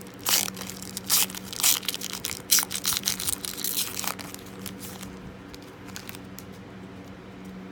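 Foil trading-card pack being torn open and its wrapper crinkled: a run of sharp crackles for the first four seconds or so, then quieter handling over a steady low hum.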